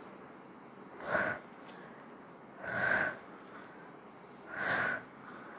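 A woman's forceful breaths, three short, hard exhalations about every second and three-quarters, the breathing of exertion timed with each hip-bridge repetition.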